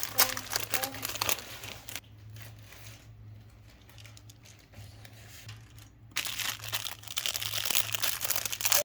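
Plastic packaging crinkling and rustling as it is handled and opened. It is loud for the first couple of seconds, quieter in the middle, and loud again for the last few seconds, over a faint steady low hum.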